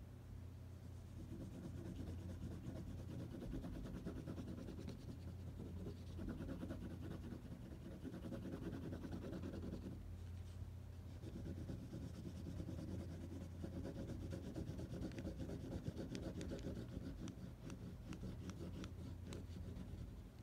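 Colored pencil scratching on paper in rapid back-and-forth shading strokes, easing off briefly about halfway through before resuming.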